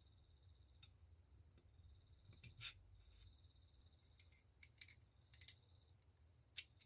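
Faint, scattered clicks and light scrapes of small steel pistol parts being handled while a spring is fitted into a Colt 1911 frame. The clicks cluster around a few seconds in, with a faint steady high whine underneath.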